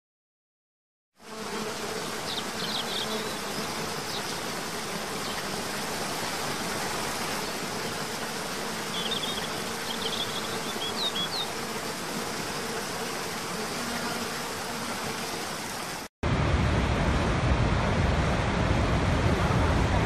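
Waterfall rushing: a steady hiss of falling water starting about a second in, with a few faint high chirps over it. About sixteen seconds in it cuts to the louder, deeper rush of Horseshoe Falls at Niagara.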